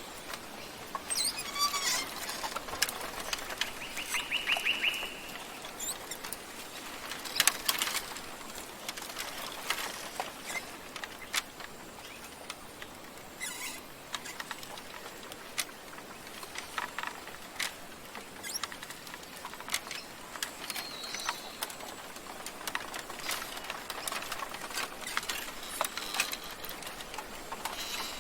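Small birds chirping and calling over a steady wash of sea waves, with many short sharp clicks scattered throughout and a rapid trill of quick, even notes about four seconds in.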